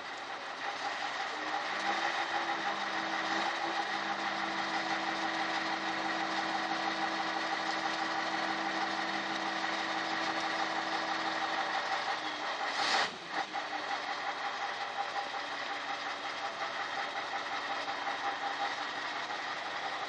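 Demag AC 205 all-terrain crane's diesel engine running steadily. A steady whine rides over it from about two seconds in until about twelve seconds, and there is a single sharp bang about thirteen seconds in.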